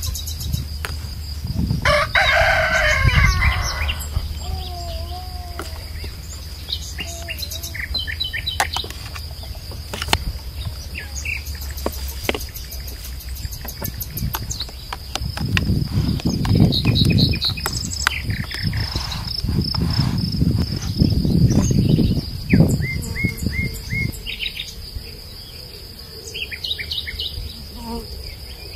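Rural yard birdsong: a rooster crows once about two seconds in, and small birds chirp throughout over a steady high insect whine. Bouts of low rumble come in the second half.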